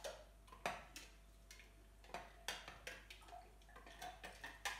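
Spoon stirring raw cane sugar into lukewarm water in a glass jar: faint, irregular clinks of the spoon against the glass, a bit under two a second, with the undissolved sugar grains crackling.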